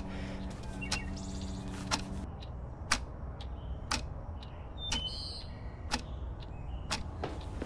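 Clock ticking about once a second over a low steady rumble. A held low drone cuts off about two seconds in.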